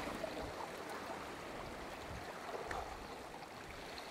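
Sea washing against rocks at the shoreline: a steady, fairly quiet wash of water, with a few faint low knocks.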